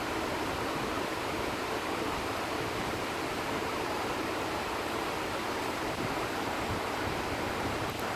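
Steady, even rushing hiss of background noise, unchanging throughout, with no knocks or tones.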